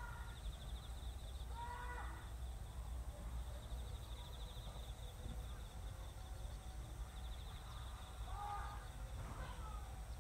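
Outdoor ambience: an insect trills steadily, a high, fast-pulsing note, over a low rumble. A few brief distant calls come through, near the start and again late on.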